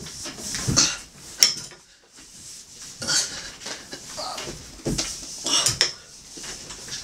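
Galvanised steel-tube bed frame clanking and knocking irregularly as a man hauls himself up onto it, with his strained grunts and heavy breaths.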